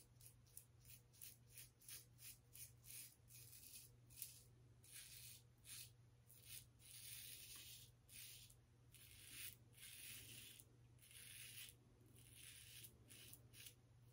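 Faint scraping of a 3D-printed plastic safety razor with a Wilkinson Sword double-edge blade cutting lathered stubble on the neck: a run of short strokes, about one or two a second, with a few longer ones.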